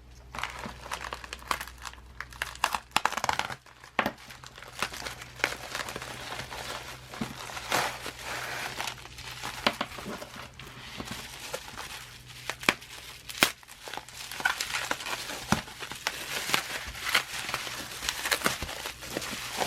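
Packaging crinkling, rustling and tearing as a K-pop album is unwrapped by hand, with irregular sharp crackles throughout.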